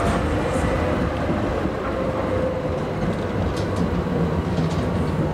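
Grenoble TFS tram passing close by: a steady low rumble of its running gear on the rails, with a faint whine.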